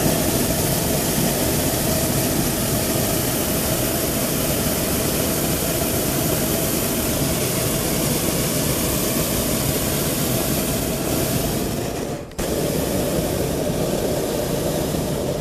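Hot-air balloon's propane burner firing in one long blast, a steady loud roar that cuts in abruptly. It drops out for a moment about twelve seconds in, fires again, and stops near the end.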